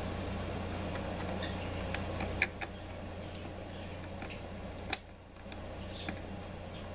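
Small handling noises of wires being twisted together and pushed into a relay module's screw terminal block: a few light, sharp clicks, the loudest about two and a half and five seconds in, over a steady low hum.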